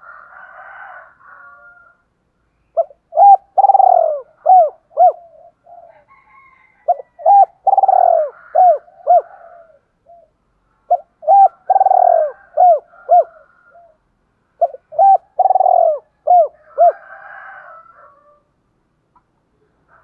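Spotted dove cooing its song four times. Each phrase is a few short coos around one longer, louder coo. This is the calling song of a decoy dove, meant to draw wild doves.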